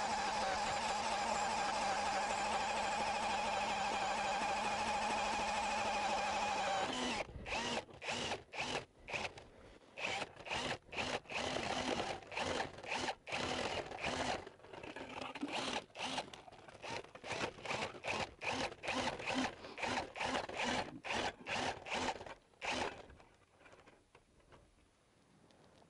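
Cordless drill driving an ice auger into the ice, running steadily for about seven seconds and then stopping suddenly. Then comes a long run of short, choppy bursts for about fifteen seconds, as the auger is worked in short spurts in the hole.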